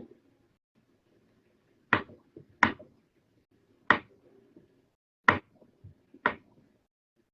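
Five sharp, short knocks, irregularly spaced about a second apart, starting about two seconds in.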